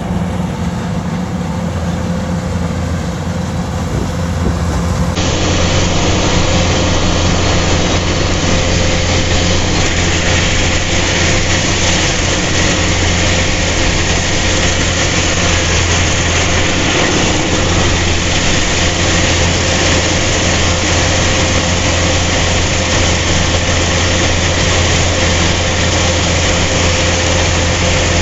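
Engine of rice-harvesting machinery running steadily, a deep low hum under a dense mechanical whirring noise. It gets a little louder about five seconds in.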